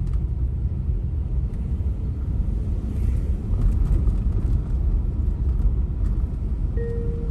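Steady low rumble of a vehicle on the move, road and engine noise.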